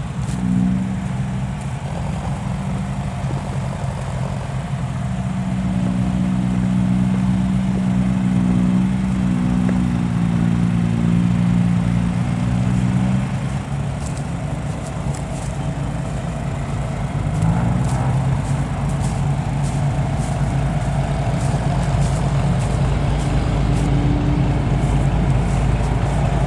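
Isuzu dump truck's diesel engine running steadily, with its note shifting about halfway through.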